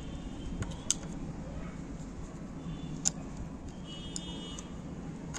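Screwdriver tightening the screws of a sewing machine's shuttle race plate: a couple of sharp metal clicks, about one second and three seconds in, over steady low background noise.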